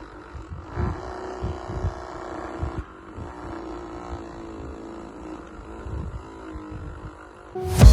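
Small DC motor taken from an electric razor running with a steady hum, with irregular low thumps underneath.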